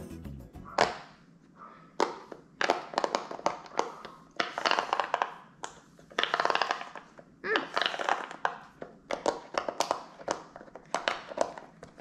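Plastic fidget toys being handled and worked: runs of quick clicks and taps, each about a second long, coming several times with single clicks between.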